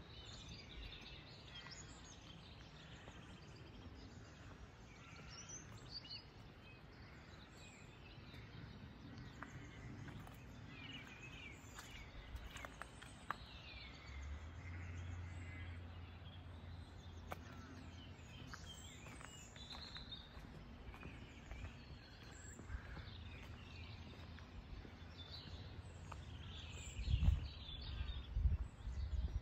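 Songbirds chirping and singing over quiet outdoor ambience. A steady low hum comes in about halfway, and a few low thumps sound near the end.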